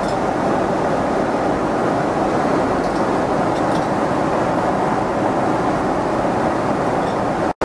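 Steady roar of cabin noise inside a Boeing 777-200 airliner: engine and airflow noise, even and unchanging, cutting out for an instant near the end.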